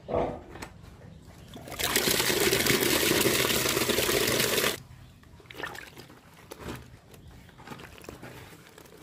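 Water pouring from a tap into a bucket of bran mash for about three seconds, then cutting off suddenly. A bucket set down with a thump comes at the very start, and faint wet sounds of a hand mixing the feed follow.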